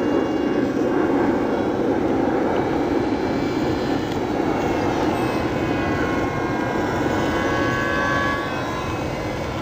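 Electric R/C airplane's motors whining faintly, their pitch slowly shifting as the plane flies about, under a heavy rush of wind on the microphone.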